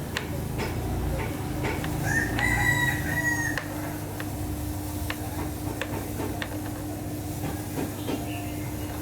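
A rooster crows once, about two seconds in, for about a second and a half, over a steady low hum and scattered light clicks.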